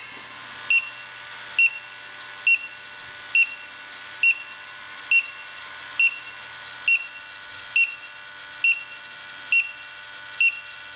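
Electronic refrigerant leak detector sniffing around a freshly charged A/C compressor, giving a short high beep a little faster than once a second. The rate stays even and never speeds up: no leak found.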